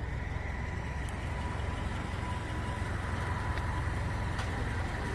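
A vehicle engine idling steadily: an even low rumble with a faint steady whine above it.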